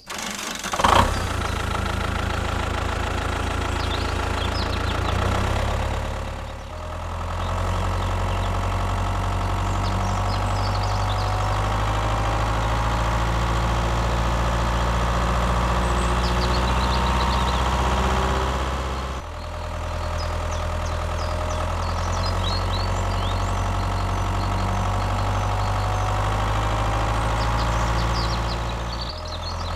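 Tractor engine running steadily at idle, with a sharp knock about a second in. The sound dips and picks up again twice along the way.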